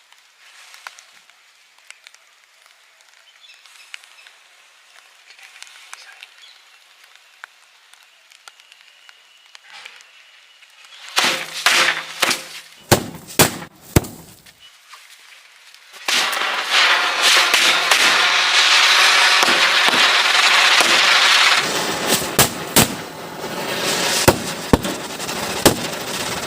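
A matchstick chain reaction setting off firecrackers and fireworks. Faint crackling of burning matches is followed about 11 seconds in by a quick run of sharp firecracker bangs. From about 16 seconds in a firework gives a loud, steady hiss with scattered sharp pops.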